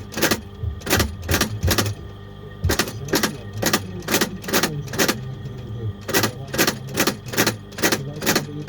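Hammer tapping in a steady rhythm of sharp knocks, about two strikes a second, with a short break about two seconds in, over a low steady hum.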